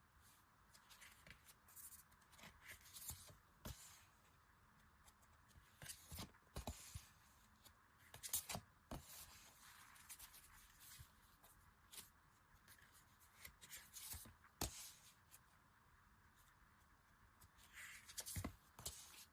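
Faint rustling, clicking and tapping of small paper and plastic merchandise being handled, in scattered bursts with a louder cluster about eight seconds in.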